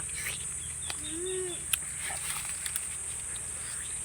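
Steady high-pitched drone of insects such as crickets, with a brief low hum about a second in and a few faint clicks.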